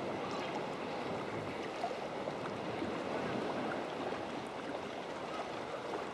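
Sea water sloshing and splashing steadily around a sea kayak in a swell.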